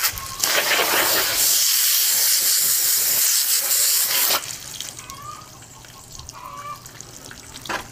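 Garden-hose spray nozzle jetting water onto a salmon on a wooden board to strip its scales: a loud, steady hiss of spray that cuts off suddenly a little past halfway. After that it is much quieter, with a short burst of spray again near the end.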